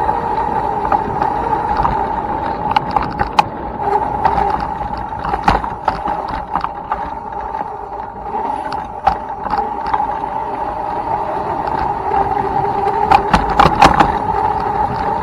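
Electric dirt bike's motor whining steadily at one pitch while riding, with rattles and sharp knocks from the bike going over rough ground, loudest in a cluster near the end.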